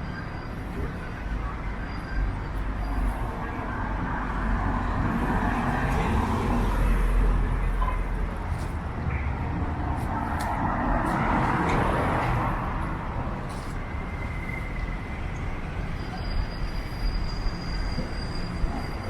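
City street traffic: two vehicles pass one after the other, each swelling and fading, over a steady rumble of traffic.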